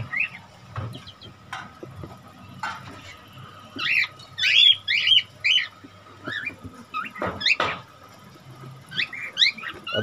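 Small caged parrots in a mixed aviary of lovebirds, budgies and cockatiels chirping in a few short clusters of quick, rising and falling calls.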